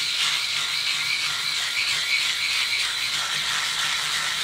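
Finishing Touch Flawless Legs electric hair remover running with a steady whir as it is passed over short stubble on a leg.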